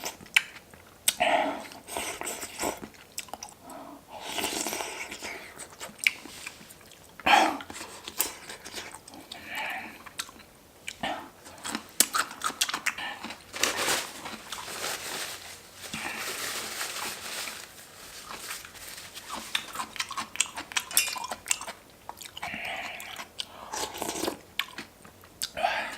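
A person chewing and crunching food close to the microphone, with irregular sharp mouth clicks and smacks.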